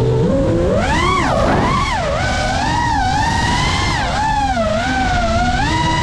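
FPV quadcopter's brushless motors whining, the pitch swooping up and down several times as the throttle is worked through freestyle flips and turns.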